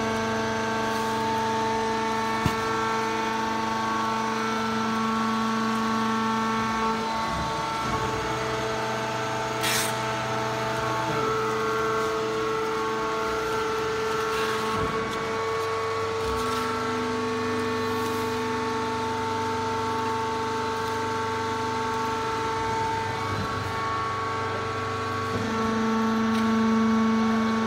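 Hydraulic sawdust pallet hot press machine running: a steady mechanical hum with several held tones, some of which drop out and come back a few times. A short sharp hiss about ten seconds in.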